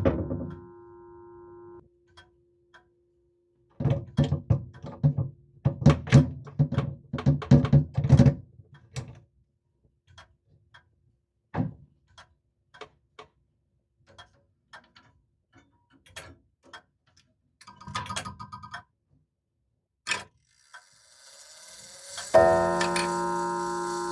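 E. Howard & Co. grandfather clock. A struck tone rings and fades over the first two seconds, followed by a few seconds of irregular clicks and knocks and then sparse ticking. About two seconds before the end comes a loud, ringing chime strike.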